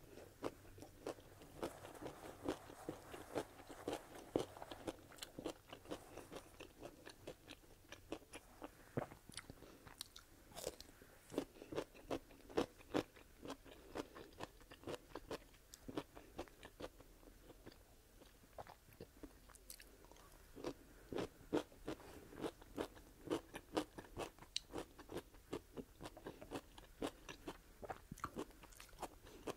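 Close-miked chewing of a crunchy pickle spear: many small, irregular crunches and wet mouth sounds.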